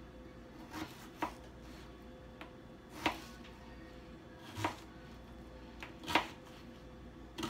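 Chef's knife slicing through a red onion and knocking on a plastic cutting board, about six separate unhurried cuts spaced a second or so apart.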